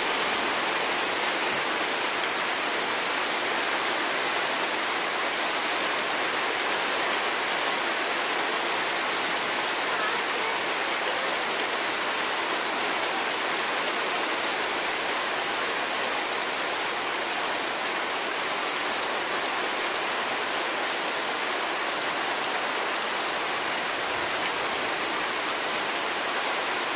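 Rain falling steadily: a dense, even hiss that holds at one level without a break.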